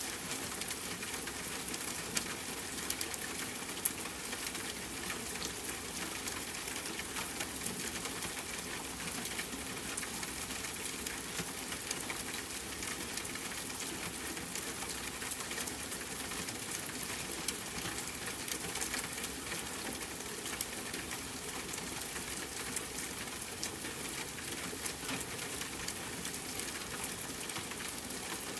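Steady rain falling: a constant even hiss dotted with many small drop ticks, without let-up.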